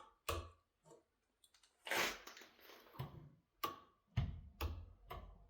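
A three-way wall light switch toggled on and off repeatedly: a run of short sharp clicks, coming quicker in the second half, with a brief rustle about two seconds in.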